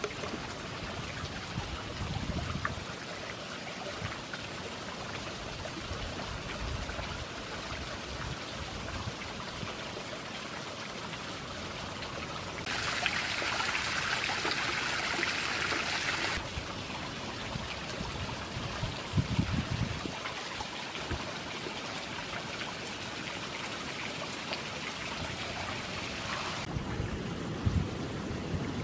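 Water running and splashing over a small creek waterfall, a steady rushing hiss. It gets louder and brighter for about four seconds just before the middle, then drops back. There are a few low thumps near the end.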